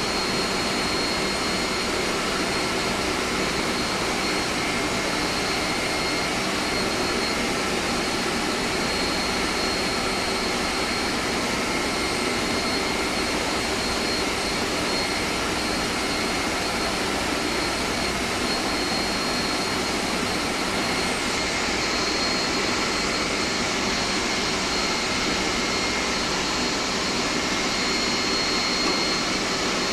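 Steady drone of running machinery in an air-conditioning plant, with a thin high whine held throughout.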